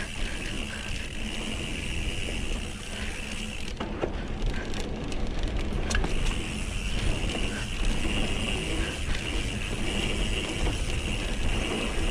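Mountain bike being ridden fast down a dirt flow trail: a steady rumble of tyres and air rushing past, with scattered clicks and rattles from the bike over bumps.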